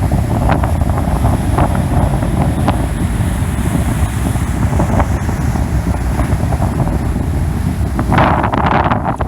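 Strong storm wind buffeting the microphone over heavy surf, with a louder rush of noise near the end.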